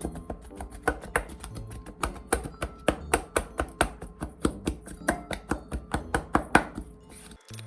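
Quick, uneven chopping strokes, a blade striking a board several times a second, that stop suddenly shortly before the end.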